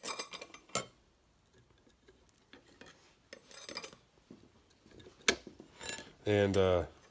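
Steel clutch plates and friction discs of a John Deere 310D reverser forward clutch pack clinking and scraping against each other and the toothed clutch drum as they are handled and fitted. A few sharp metal clinks with quieter rubbing between, and a short hum of voice near the end.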